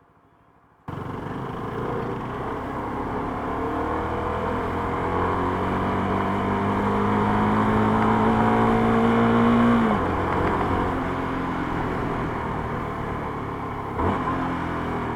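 CFMoto 300SR motorcycle engine with stock exhaust, pulling under way: it comes in suddenly about a second in, its pitch climbs slowly for several seconds, then drops about ten seconds in as the throttle is eased or a gear is changed. A short knock near the end.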